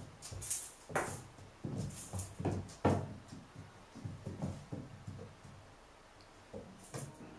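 Kitten pouncing and scampering on a laminate floor after a dangling string toy: irregular light thumps, knocks and scrabbling paws. The thumps are loudest in the first three seconds and thin out near the end.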